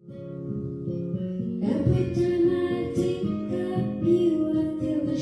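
Background music led by plucked guitar, starting at once and filling out about two seconds in.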